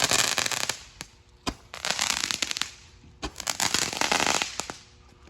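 Fireworks crackling in three spells of dense rapid pops, with single sharp cracks between them, dying away near the end.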